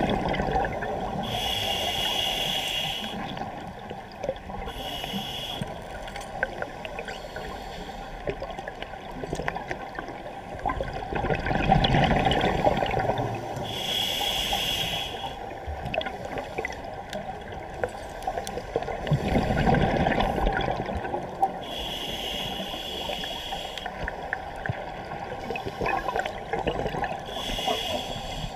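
Scuba diver breathing through a regulator underwater: slow, irregular breaths, about five short hissing inhalations through the demand valve, each followed by a longer bubbling, gurgling exhalation as the exhaust bubbles stream out.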